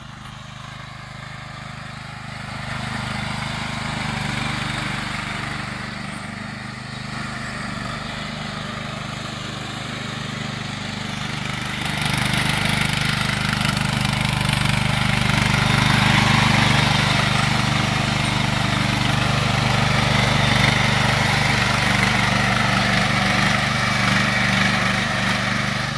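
Husqvarna CTH 170 garden tractor's engine running at a steady speed as the tractor drives over snow and mud. It gets louder as the tractor draws near, and in the second half it is heard close up.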